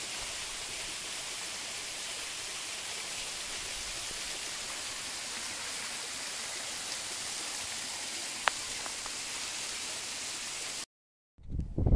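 Steady rush of river water, an even hiss with one sharp click about eight and a half seconds in. It cuts off abruptly near the end, and wind then buffets the microphone.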